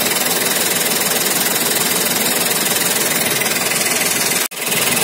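Chevrolet Beat's three-cylinder turbo-diesel engine idling steadily, heard close up in the open engine bay; its turbocharger is seized and not spinning. The sound cuts out for an instant near the end.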